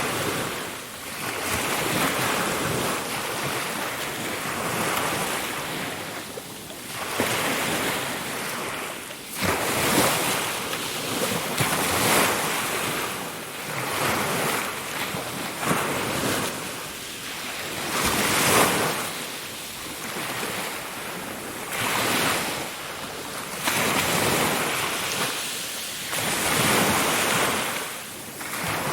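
Ocean waves breaking and washing on a shore, swelling and falling every two to three seconds in a continuous surf wash.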